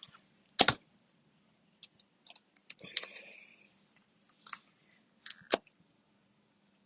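Scattered clicks and taps of small plastic craft supplies being handled, the sharpest a little over half a second in and again near the end, with a short scuffing rustle about three seconds in.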